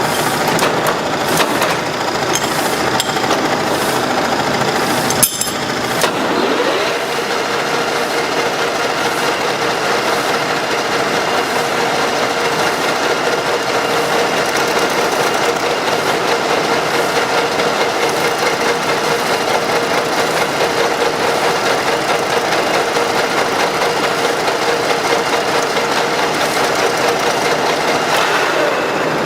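Machine tool running and cutting metal, a steady mechanical noise. About five seconds in there is a sharp click, then a rising whine that settles into a steady hum.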